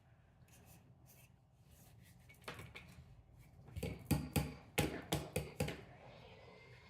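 A run of about seven sharp clacks and knocks, bunched together about four to six seconds in, from handling the hot air soldering station's handpiece. Near the end a faint steady whir with a thin tone starts up.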